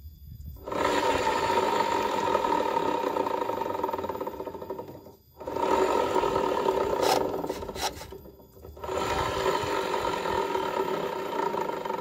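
Honda Vario 110 scooter's open CVT turning as the rear wheel is spun by hand with the engine off, giving a rough grinding 'ngorok' noise in three spells, each fading away. The noise comes from the rear (driven) pulley, where the mechanic suspects a loose or damaged bearing.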